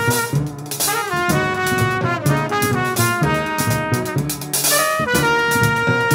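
Jazz trumpet soloing with long held notes broken by quick slurred runs, over plucked upright bass and drums.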